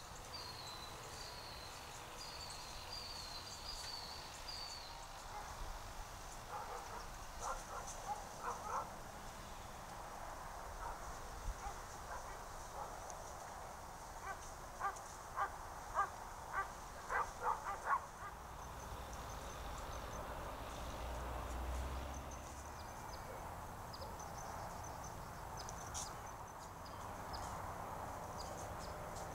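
Faint outdoor ambience picked up by a trail camera's microphone: a small bird's repeated warbling chirps in the first few seconds, then scattered sharp taps and, about halfway through, a quick run of a dozen or so louder taps.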